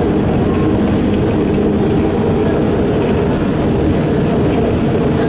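Ikarus 260.50 city bus's diesel engine running steadily at cruising speed, heard inside the moving bus together with road noise.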